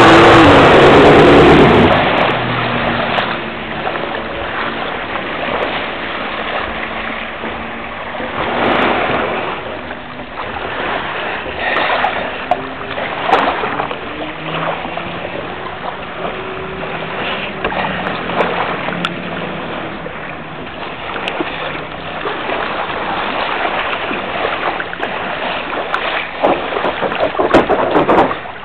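Yamaha SuperJet stand-up jet ski's engine running loudly, falling away about two seconds in. Then water sloshes and splashes against the hull as the ski drifts in shallow water, with louder splashes now and then and a burst near the end.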